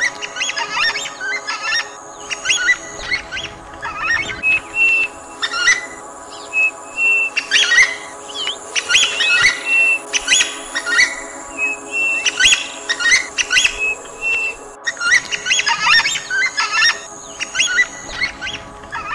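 A chorus of many birds chirping and whistling, with a short flat whistle repeated several times, over a soft steady music bed.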